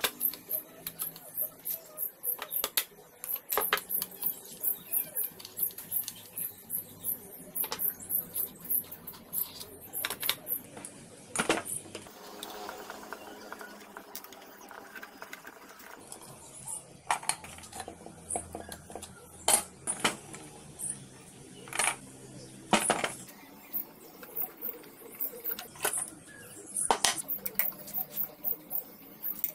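Metal parts of an antique sewing machine clicking and clinking as it is taken apart with a screwdriver: screws, small fittings and tools knocked and set down on the wooden table. There are runs of rapid light ticks and a stretch of scraping in the middle.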